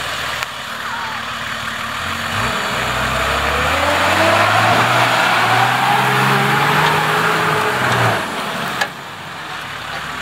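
Four-wheel-drive engine revving hard under load, its pitch and loudness climbing steadily for several seconds before it backs off about eight seconds in.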